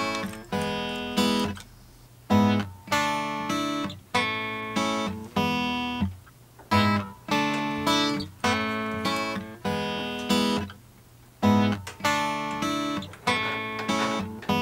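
Background music: acoustic guitar strumming chords in a steady rhythm, each chord ringing out and fading, with brief pauses now and then.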